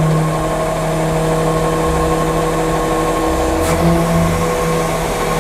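Garbage truck's engine and hydraulic system running with a steady hum as the hydraulic rear tailgate closes; the tone shifts slightly about four seconds in.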